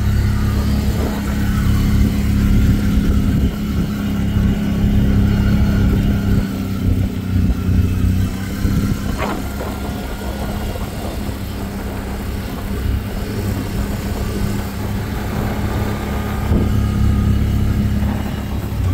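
ATV (four-wheeler) engine running steadily under way, easing off shortly before the end.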